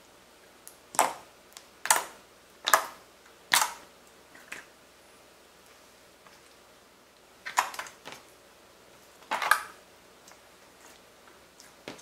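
Clear slime being pressed and folded by hand, giving sharp wet pops and crackles: four about a second apart, then two more after a pause.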